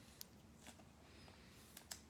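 Near silence with a few faint clicks and ticks of trading cards being handled, the loudest two close together near the end.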